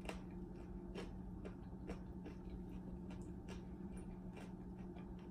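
Soft, irregular clicks of eating, chewing and mouth sounds, over a steady low hum.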